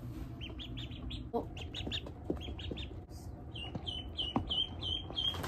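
Ducklings peeping: scattered short, high peeps, then from about three and a half seconds in a steady run of repeated peeps, about three a second.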